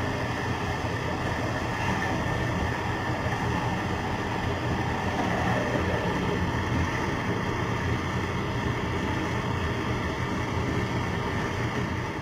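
Countertop electric blender running steadily at a constant speed, pureeing chopped ginger, turmeric and onion into a smooth paste.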